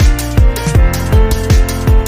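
Electronic background music with a fast, heavy beat: deep kick drums falling in pitch, about two or three a second, under held synth chords.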